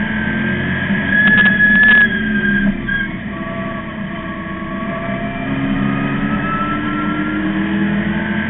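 Street stock race car's new crate engine under racing load, heard from inside the cockpit. It is loudest about a second in, with a couple of sharp knocks. The pitch drops off around the three-second mark, then climbs steadily as the car accelerates.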